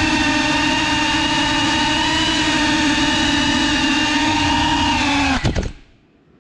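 Brushless motors and propellers of a GEPRC 5-inch FPV quadcopter whining at a steady pitch, recorded close up by the onboard camera. About five and a half seconds in, a brief clatter of knocks as the drone hits the floor, and the motors cut out.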